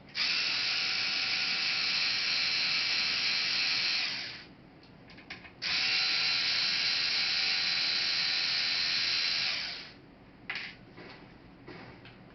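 Small electric screwdriver running in two steady bursts of about four seconds each, backing screws out of the laptop's case. Light clicks of handling come between the bursts and near the end.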